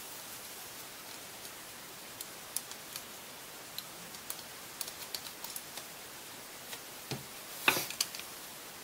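Scattered light clicks and taps of small screws and laptop parts being handled, with a louder knock or two near the end.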